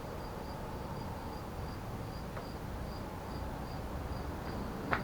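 An insect, likely a cricket, chirping steadily in an even, high-pitched pulse about four times a second over a low background rumble, with one sharp click near the end.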